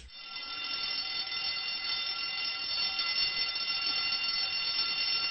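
Alarm clock bell ringing continuously, swelling in over the first second and then holding steady.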